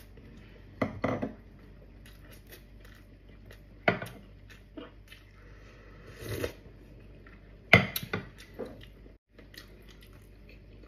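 Close-up eating sounds: a person chewing and smacking on gelatinous beef hoof stew with rice, with a few sharp clicks and knocks of dishes. About six seconds in there is a longer slurp of soup from a glass bowl.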